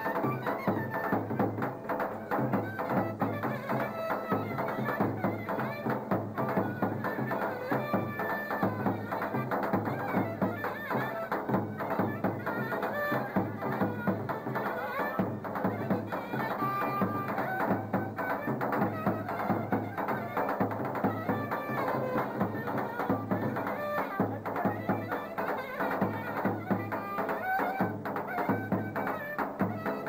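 Live Turkish folk dance music: a clarinet playing a continuous, ornamented melody over a steady, driving davul drum beat.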